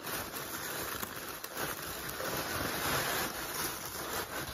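Tissue paper being handled: a steady rustle dense with fine crackles.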